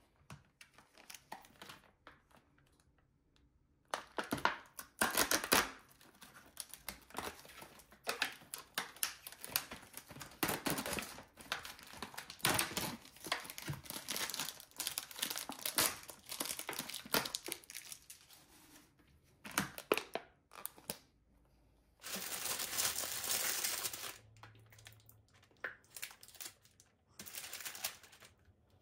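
Plastic food packaging and baking paper crinkling and rustling as they are handled, in many quick irregular crackles. Near the two-thirds mark there is one longer continuous tearing rasp of about two seconds.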